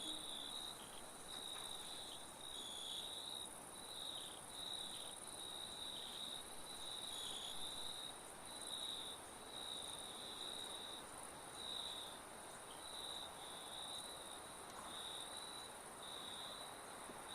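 Insects chirping: a high trilling chirp repeated about once a second, over a faint high hiss.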